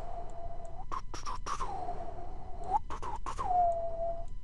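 A person whistling three long held notes, the first entering on a fast slide down from a high pitch. Several quick mouse clicks fall between the notes.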